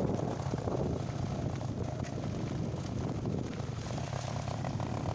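Motorcycle engine running steadily with a low drone while the bike rides along a rough dirt road.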